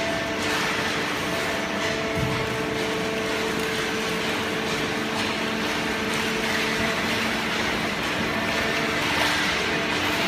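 Horizontal hydraulic baler running steadily, its hydraulic pump unit giving a constant hum with several steady tones over a noisy machine din.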